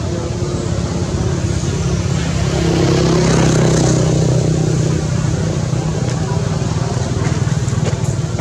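A motor vehicle's engine running, growing louder about three seconds in as it passes close by, then easing off.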